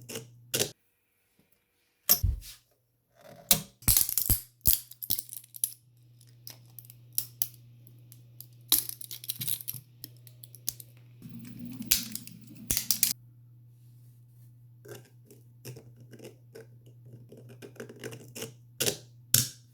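Hard plastic 3D-printed parts being handled and fitted together: scattered clicks, taps and short scrapes over a steady low hum.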